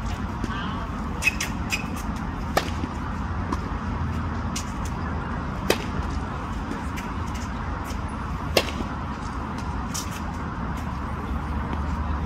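Tennis balls struck by rackets in a practice rally: sharp pops about every three seconds, with fainter hits and bounces between, over a steady low rumble.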